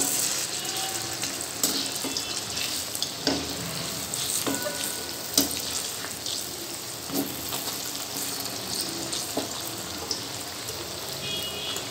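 Dal vadas deep-frying in hot oil in a steel kadhai on high heat, a steady sizzle, with scattered light clinks of a slotted metal spoon against the pan as they are turned over.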